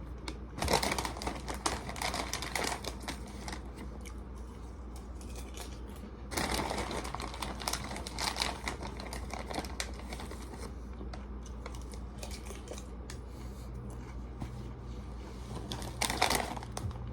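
Popcorn bag crinkling and rustling in two spells of a few seconds each, starting about a second in and about six seconds in, with a shorter rustle near the end.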